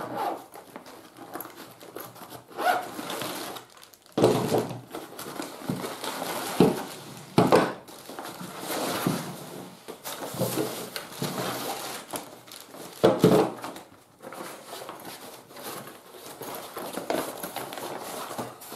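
Rustling of a nylon stuff sack and crinkling of clear plastic bags as a folding camping cot is unpacked, with several sharp knocks as the bagged metal leg sections and poles are set down on a wooden table, the loudest about four, seven and thirteen seconds in.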